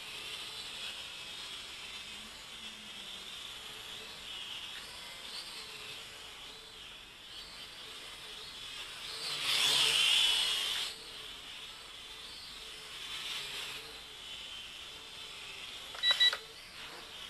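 JJRC H31 quadcopter's motors and propellers whining, the pitch wavering as the throttle changes; about ten seconds in the whine swells loud for about a second and a half. Near the end there are two short electronic beeps.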